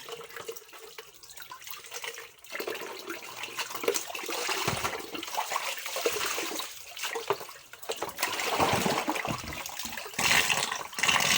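Tap water running and splashing in a kitchen sink during hand dishwashing, uneven, with scattered clicks and knocks. The water gets louder and brighter for the last second or so.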